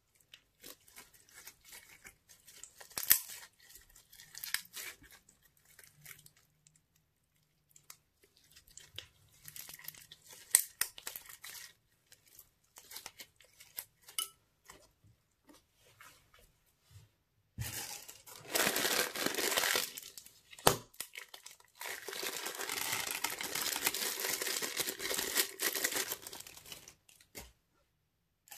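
Green foam-bead slime being stretched, squeezed and pulled apart by hand, giving scattered sticky crackles and pops. In the second half come two longer stretches of continuous rustling, the loudest part, at about 18 and 22 seconds in.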